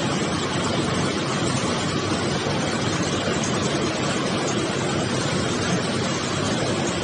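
Automatic beverage canning line running, a steady dense mechanical noise without any distinct rhythm or tone.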